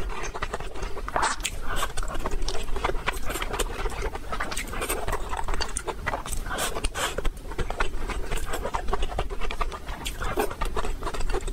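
Close-miked chewing of rice and braised food: a steady run of wet mouth clicks and lip smacks.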